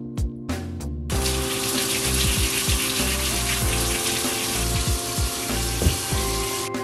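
Kitchen tap running into a sink: water starts about a second in, runs steadily for about five and a half seconds and shuts off near the end. Background music plays throughout.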